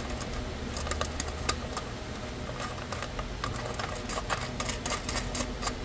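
Small irregular metal clicks and ticks as washers and a nut are fitted by hand onto a bolt through a metal solar-panel mounting foot, over a low steady hum.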